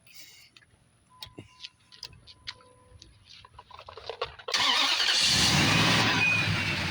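A few faint clicks, then about four and a half seconds in a 4.7-litre V8 truck engine is started: it catches suddenly with a burst of noise and settles into a steady run.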